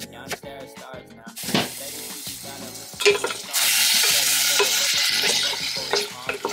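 A knife chopping onions on a cutting board in quick taps. From about three and a half seconds in, food sizzles loudly in hot oil in a frying pan.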